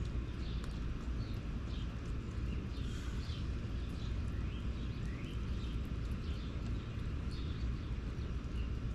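Small birds chirping: short high chirps and a few quick rising notes scattered throughout, over a steady low rumble.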